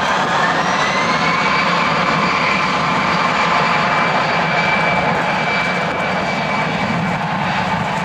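Airbus A319-111's twin CFM56-5B turbofans spooling up as the airliner starts its takeoff roll: a whine rises in pitch over the first two seconds, then holds steady over the loud engine rush.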